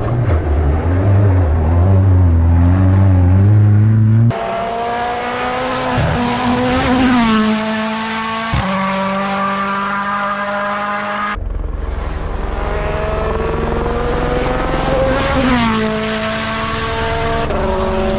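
Rally cars at full throttle on a special stage, one after another, each engine climbing in pitch and dropping back at upshifts as it accelerates past.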